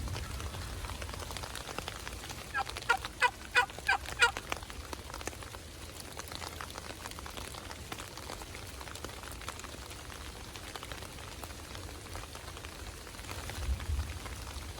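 A run of about six quick turkey yelps, a couple of seconds in, over a steady hiss of rain.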